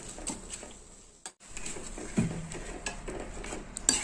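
Steel spoon scraping and clinking against a metal pan while stirring a thick tamarind-and-ginger mixture, in scattered sharp clicks and knocks. The sound drops out briefly about a second in.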